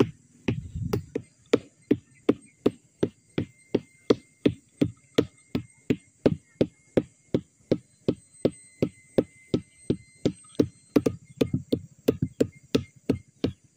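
Sugar palm (aren) male flower stalk being beaten with a steady run of evenly spaced dull knocks, about three a second. This is the bruising of the stalk that is done before tapping so that it will yield sap.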